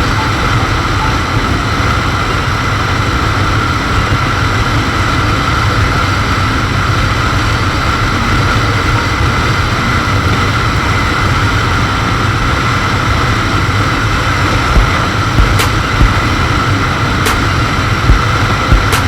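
Motorcycle riding at a steady speed: engine and wind noise on the on-board microphone, with a few sharp clicks near the end.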